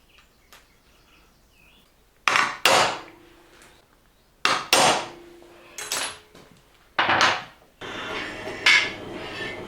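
Sharp metal-on-metal strikes on the router base plate, mostly in quick pairs about two seconds apart, a couple of them leaving a short ringing tone, followed by a rougher rattling clatter near the end.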